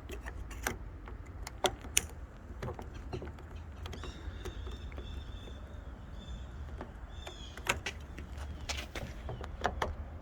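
Scattered clicks and taps of plastic and metal car door-handle parts being handled and fitted by hand, over a steady low hum. High chirping comes in the middle.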